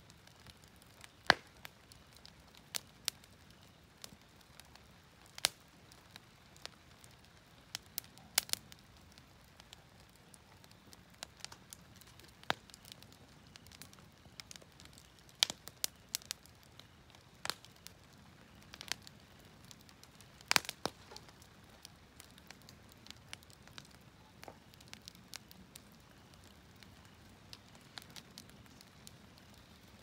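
Wood fire in a fire pit crackling, with sharp pops scattered at irregular intervals over a faint low hiss; the loudest pops come near the start, about halfway through, and about two-thirds of the way in.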